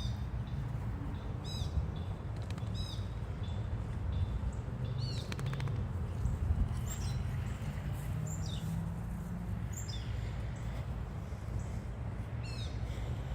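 A small bird chirping repeatedly, with short high falling chirps every second or two, over a steady low background rumble.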